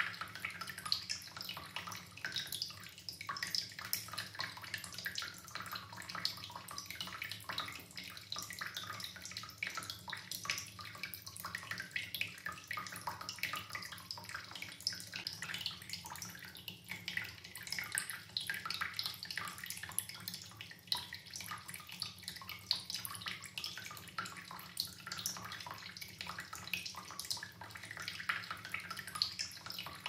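Running water splashing and trickling steadily, a dense even patter of small splashes.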